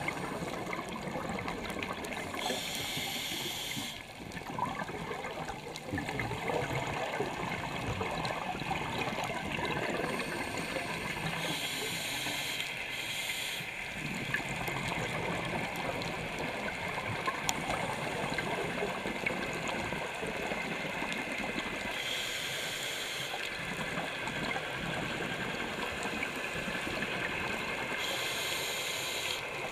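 Scuba breathing heard underwater: a steady wash of water noise, broken four times by a hissing breath through a regulator, each lasting about two seconds.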